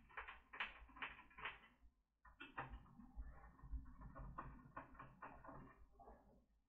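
Faint, irregular clicking and scraping of plastic laptop parts being handled and pried apart during disassembly, several small clicks a second with a brief pause about two seconds in.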